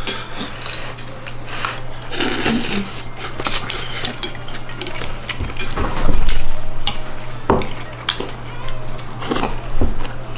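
Dishes and cutlery clinking and knocking in scattered irregular strikes, over a steady low hum.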